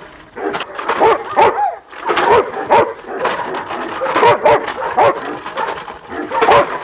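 German Shepherd dog barking repeatedly: more than a dozen barks in quick groups.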